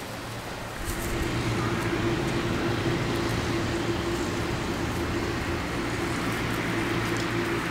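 A steady engine hum that starts about a second in and holds at one pitch, over a haze of noise.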